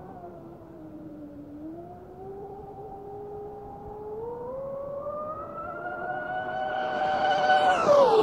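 Motor of a small, fast boat on the water, its whine slowly rising in pitch and growing louder as it approaches, then dropping sharply in pitch as it passes close by near the end.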